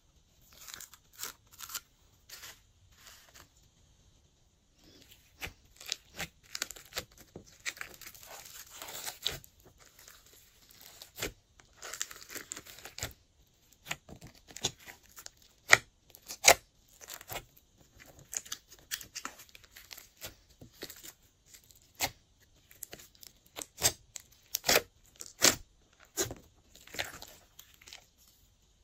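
Glossy slime being mixed and worked by hand, giving irregular sticky pops, clicks and crackles.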